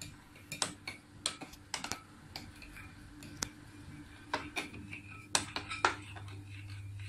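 Spoon clicking and tapping irregularly against a glass mixing bowl as a slime mixture of glue and water is stirred, about two clicks a second, over a faint steady hum.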